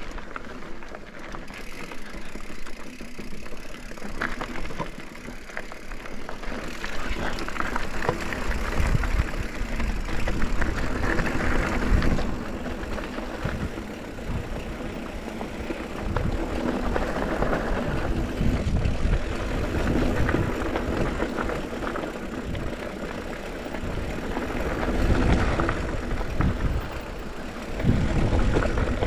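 Mountain bike descending a dirt trail, heard from a GoPro on the bike or rider: wind buffeting the microphone and tyre rumble that swell and ease, with scattered clicks and rattles over bumps.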